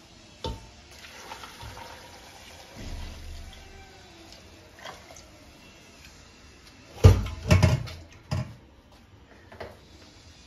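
Hot water poured into a pot, then a quick cluster of loud clunks and another shortly after as cookware is handled.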